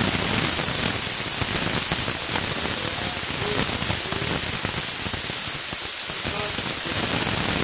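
Onion-ginger masala (tadka) sizzling in hot oil in the pan: a loud, steady frying hiss with fine crackle, starting and cutting off abruptly.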